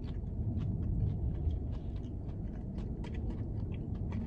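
Someone chewing a mouthful of breaded chicken fry, soft irregular clicking and crunching, over a steady low rumble.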